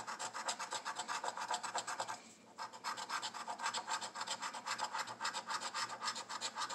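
Scratch-off lottery ticket being scraped with the edge of a coin-like disc: rapid back-and-forth scratching strokes on the card's latex coating, with a brief pause about two seconds in.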